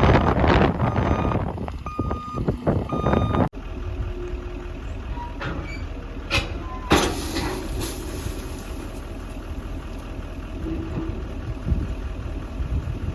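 Short electronic warning beeps repeating about twice a second over a running vehicle engine. After a sudden cut about three and a half seconds in, the engine runs on steadily with a few faint clicks.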